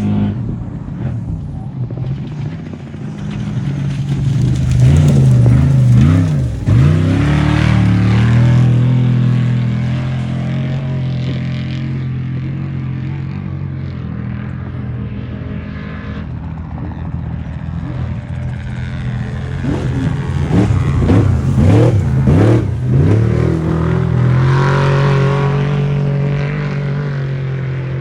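Off-road race truck engine running loudly, revved hard in two stretches of rapid rising and falling pitch, about four seconds in and again about twenty seconds in. Between them and near the end it holds a steadier note.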